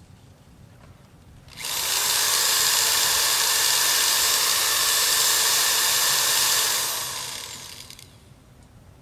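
A handheld power tool's motor switched on suddenly, running steadily at full speed for about five seconds, then winding down with a falling whine.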